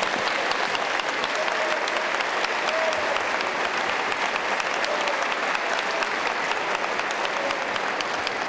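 Large crowd applauding and cheering steadily, a dense patter of many hand claps.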